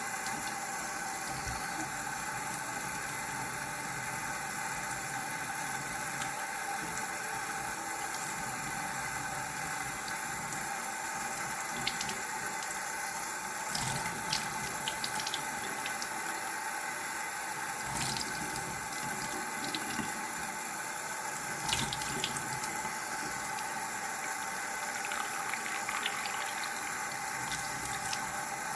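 Water running steadily from a tap into a sink, with a few light clicks or knocks now and then.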